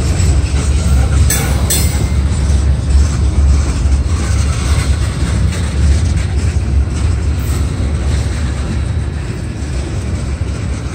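Loaded ballast hopper cars of a rock train rolling past: a steady low rumble of steel wheels on rail, with a couple of short clanks about a second and a half in.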